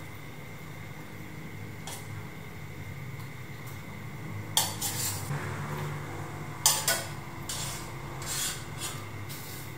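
Metal ladle scraping and clinking against the inside of a stainless steel pot while scooping boiled dumplings out of the water. Sharp clinks come about halfway through, then scraping with a few more knocks near the end.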